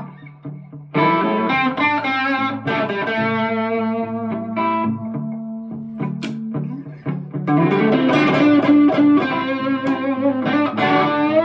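Grote semi-hollow body electric guitar playing a mix of chords and single-note lines. A loud chord comes in about a second in, and a note slides up in pitch around the middle.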